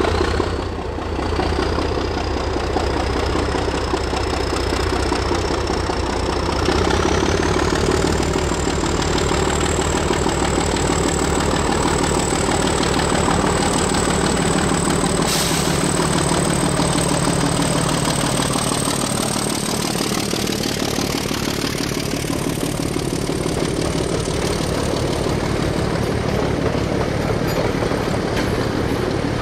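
English Electric diesel-electric locomotive Dg 770 accelerating a train away from a standstill, its diesel engine working under load with a deep rumble and a high turbocharger whine that climbs in steps, about a second in and again about seven seconds in. A brief sharp click halfway through.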